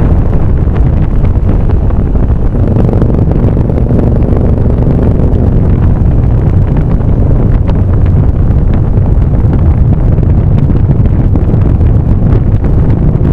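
A vehicle running steadily along the road, its engine a low drone under heavy wind buffeting on the microphone.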